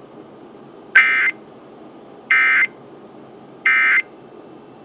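Emergency Alert System end-of-message (EOM) signal: three short, identical bursts of SAME digital data tones, about a second apart, marking the end of the alert.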